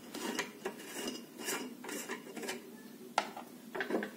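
Plastic retaining ring of a motion-sensor ceiling lamp being twisted off its textured glass shade: a run of small clicks and scrapes, with a sharper click a little after three seconds.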